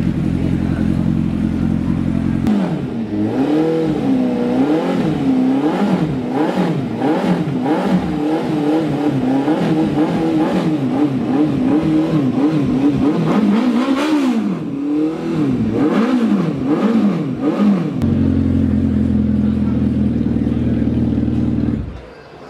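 Superbike engine idling, then revved over and over in quick throttle blips for about fifteen seconds, rising and falling each time. It settles back to a steady idle and shuts off near the end.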